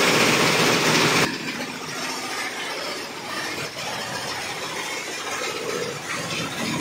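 Promaker 24-head commercial embroidery machine running, its needle heads stitching at speed with a steady mechanical chatter. Louder and brighter for about the first second, then settling to a lower steady level.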